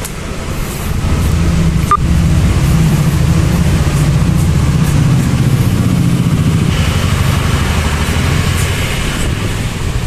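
A motor vehicle engine running close by, a steady low rumble, with a single sharp click about two seconds in.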